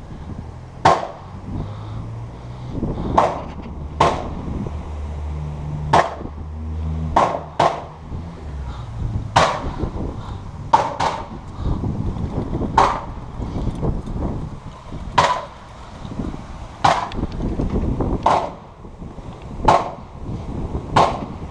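Airsoft guns firing single shots, a sharp snap every second or two, over low handling and movement rumble.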